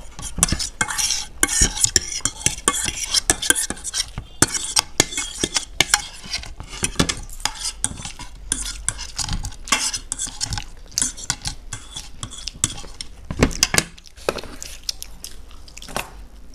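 Metal forks clinking and scraping against plates as noodles are hurriedly scooped up and eaten: a fast, irregular run of clicks and scrapes that thins out near the end as the plates are cleared.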